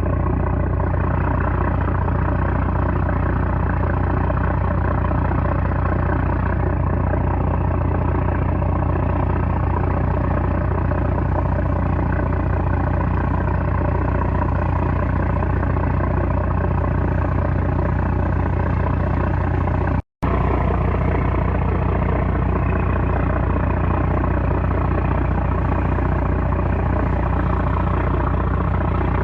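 A 330-horsepower trawler's diesel engine running steadily, a constant heavy low drone, with a split-second dropout about twenty seconds in.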